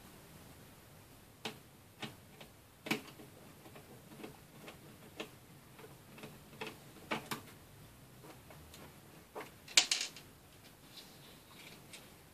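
Small irregular clicks and taps from a screwdriver backing out screws at the hinge area of an Asus X51R laptop and the parts being handled, with a sharper, louder tap about ten seconds in.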